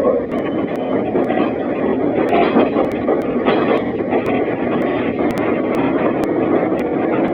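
A train running, heard as a steady, even rumble. The sound is muffled and rough from a feature-phone microphone.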